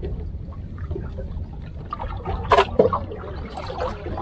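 Sea water sloshing and trickling in the gaps between concrete breakwater blocks, over a steady low rumble. Two short, louder noises come about two and a half seconds in.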